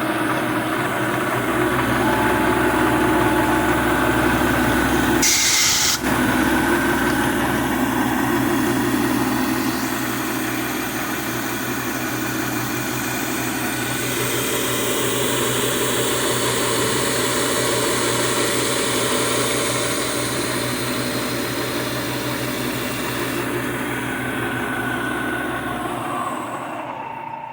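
1980 Shizuoka AN-S CNC milling machine running steadily on a chamfering pass in 1018 steel, with steady motor tones and machining noise. A short hiss comes about five seconds in, and the low hum cuts out near the end.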